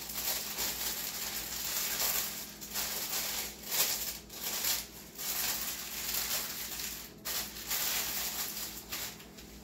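Plastic packaging crinkling and rustling in irregular bursts as a diamond-painting kit's bags and wrapping are handled, easing off near the end.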